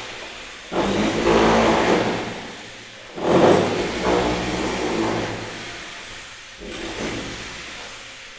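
A motor revved in three short bursts, about three seconds apart. Each one starts sharply and dies away over two or three seconds.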